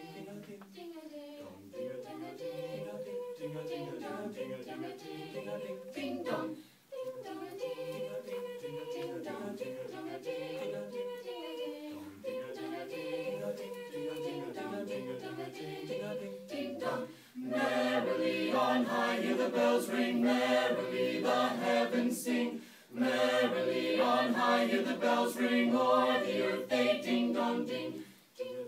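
A mixed vocal octet of four female and four male voices singing a cappella, with brief pauses between phrases. The singing grows louder and fuller a little past halfway.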